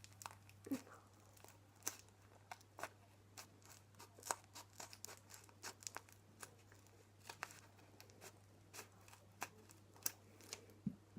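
Scissors snipping into a homemade paper squishy, a stuffed paper dog, with paper crinkling as it is cut: many short, irregular snips and rustles.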